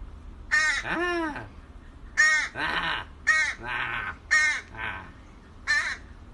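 A crow cawing over and over in short calls, roughly one a second, each rising then falling in pitch, some harsher and raspier than others.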